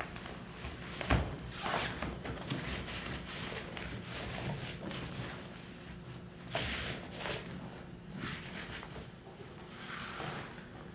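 Nylon kayak sprayskirt rustling and swishing as hands work the fabric and grab loop over the cockpit rim, with a short knock about a second in and a longer, louder swish past the middle.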